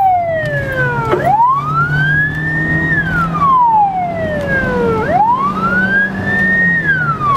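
Police car siren wailing in slow cycles, about two full rises and falls. Each climbs for roughly two seconds and sinks for about two, over a steady low engine hum.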